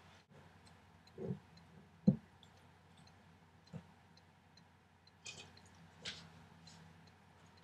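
A quiet room with a faint steady hum, broken by a few short soft knocks, the sharpest about two seconds in, and a few lighter clicks in the second half.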